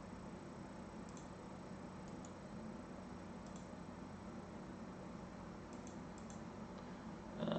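Faint computer mouse clicks, about six scattered through, over a steady low hum of room noise. A louder noise starts right at the end.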